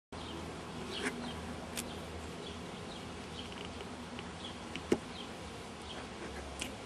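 Outdoor ambience with an insect buzzing steadily, scattered faint high chirps, and a single sharp click about five seconds in.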